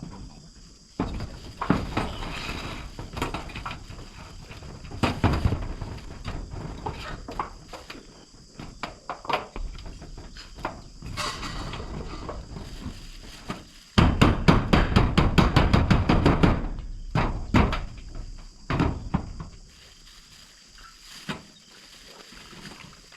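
Hand-tool knocks and taps of building work: irregular strikes, with a fast run of repeated hammer-like blows about fourteen seconds in, then quieter scattered taps.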